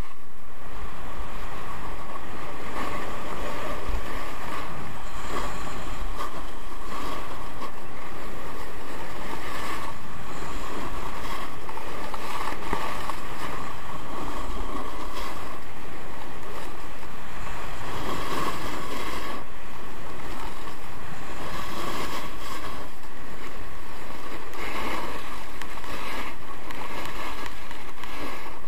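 Steady rush of wind over the microphone mixed with skis sliding and scraping on packed snow during a continuous downhill ski run, with a few louder stretches of scraping.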